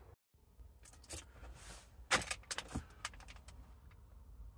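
A few quiet, scattered clicks and clinks with a short rustle: hands handling an 18650 battery pack in its plastic cell holders and its wiring while fitting it back into its wall bracket.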